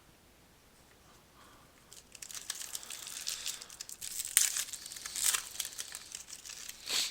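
A foil trading-card pack being torn open and its wrapper crinkled, starting about two seconds in as an irregular, crackly rustle with sharp spikes.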